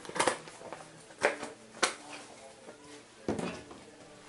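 A few short knocks and clatters of kitchen containers and utensils being picked up and set down on a table, the loudest about three seconds in.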